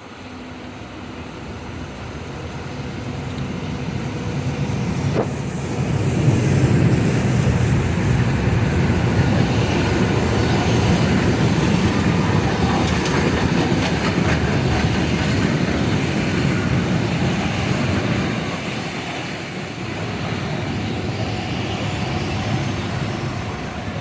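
A train passing close by on the rails. It grows louder over the first six seconds, stays loud for about twelve seconds, then eases off a little.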